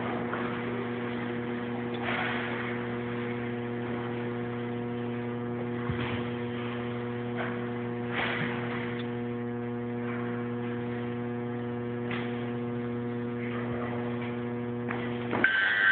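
Steady electrical mains hum with a stack of even overtones, broken only by a few faint knocks. It cuts off suddenly near the end, when louder, busier noise takes over.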